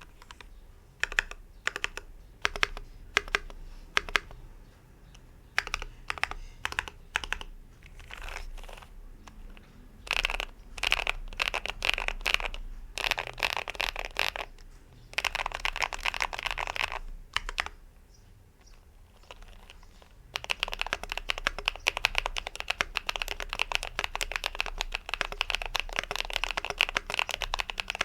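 Mechanical keyboard with factory-lubed MZ Studio Z1 linear switches on an Idobao ID80 with an integrated aluminium plate, being typed on. For about the first ten seconds single key presses come a fraction of a second to a second apart. Then come bursts of fast typing with short pauses, and steady fast typing from about twenty seconds in.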